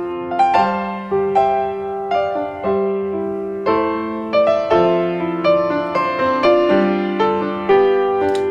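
Background solo piano music, single notes and chords struck about twice a second.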